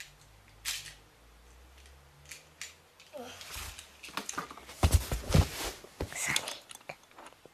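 Small plastic toy train being handled: scattered light clicks and rattles of plastic, then a cluster of heavier thumps and knocks about five seconds in.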